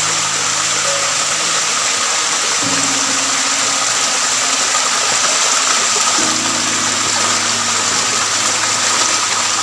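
Water of a forest stream rushing over rocks: a steady, loud hiss. Soft background music with low held chords that change every few seconds plays under it.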